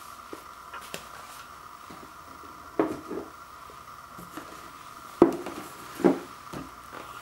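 Handling vinyl LP records and a white cardboard box-set case on a wooden floor: three knocks, the loudest about five seconds in as the box is set down, with smaller clicks and taps of handling, over a faint steady hum.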